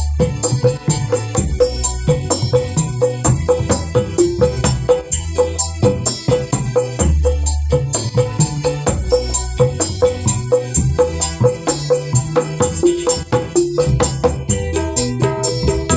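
Kendang hand drums played in a fast, steady dangdut rhythm over a backing track with deep bass notes, the drum strikes close together and even.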